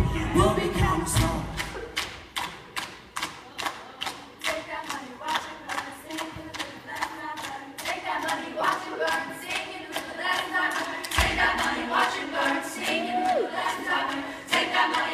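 Mixed-voice a cappella group singing in harmony, over a steady beat of sharp clicks, about three a second. A single deep thump comes about eleven seconds in.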